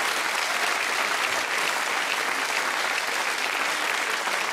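Theatre audience applauding steadily, a dense crackle of many hands clapping after a punchline.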